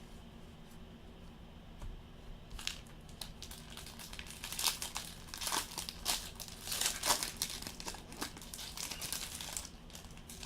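Trading-card pack wrapper being torn open and crinkled, a run of crackly rustling that starts about two and a half seconds in, is loudest in the middle and stops shortly before the end.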